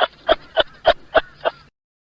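An animal's short, sharp calls repeated rapidly, about three a second, six in a row, cutting off abruptly near the end.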